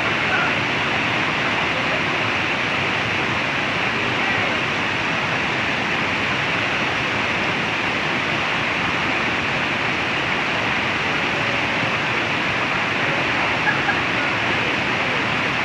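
River whitewater rushing over and around boulders in a rapid: a steady, unbroken rush of water.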